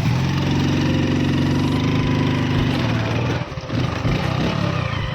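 Motorcycle engine running as the bike is ridden, its note dropping off briefly about three and a half seconds in before picking up again.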